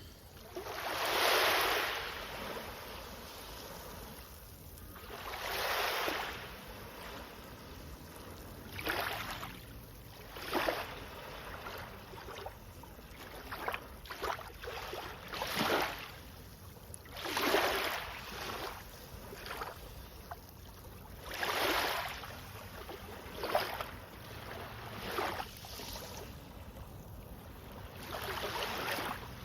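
Small sea waves breaking and washing in one after another, each a rushing swell that fades within a second or two, every few seconds.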